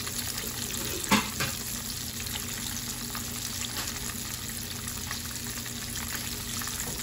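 Breaded flounder fillets shallow-frying in hot oil in a skillet: a steady sizzle with fine crackling, and one louder pop about a second in.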